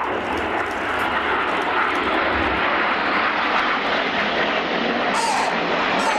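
Several BAE Hawk T1 jets with Rolls-Royce Turbomeca Adour turbofans flying in formation: a loud, steady rush of jet noise.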